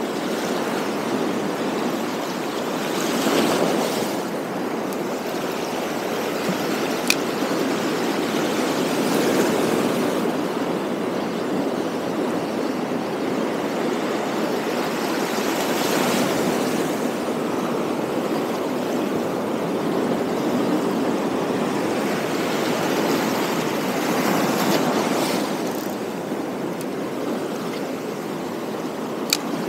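Sea waves washing over a rocky shore close by, a steady rushing that swells and eases every several seconds. Two short sharp clicks, about seven seconds in and near the end.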